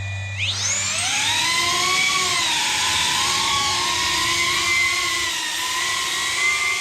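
Cinewhoop FPV quadcopter's ducted propellers whining as the motors throttle up about half a second in, then a steady high whine that wavers up and down in pitch with the throttle.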